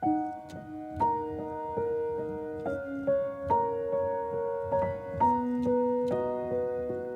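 Gentle, slow piano music: single notes struck every half second or so over held chords, starting suddenly.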